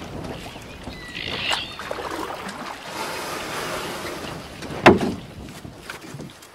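Water and wind noise from a boat at sea, with a short high gliding sound a little over a second in and one sharp knock about five seconds in.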